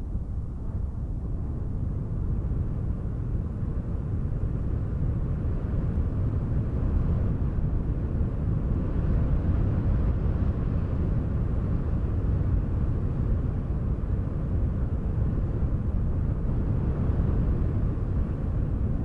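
Wind noise: a steady, deep rushing that swells and eases slightly, with no distinct events.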